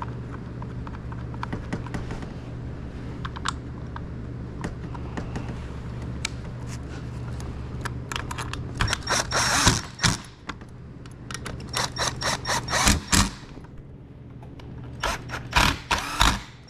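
Cordless Milwaukee driver running Torx screws into a Stihl HS56 hedge trimmer's plastic starter cover in three short bursts: about halfway through, again a few seconds later, and near the end. Each burst is a high motor whine with rapid clicking. Before them come small clicks of screws and parts being handled.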